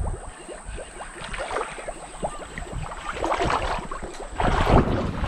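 Shallow water sloshing and splashing around a person's legs as they wade, in quick uneven bursts that grow louder near the end.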